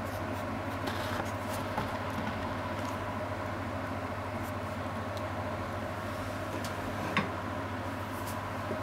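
Steady hum of a running kitchen appliance, with a single small click about seven seconds in.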